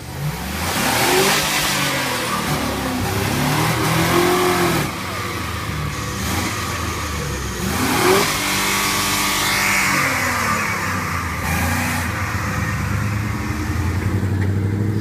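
A big SUV's engine revving hard again and again, its pitch climbing and falling in several surges. The SUV is straining against a tow truck's wheel lift that holds its rear end up.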